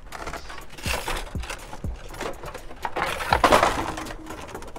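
A plastic wheel cover and its cardboard box being handled: a few light knocks, then a louder burst of crinkling and rustling of the packaging about three seconds in.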